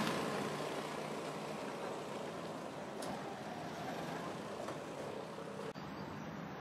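Motor scooter riding away, its engine sound fading steadily. About two thirds of the way in it cuts off suddenly to quieter outdoor background.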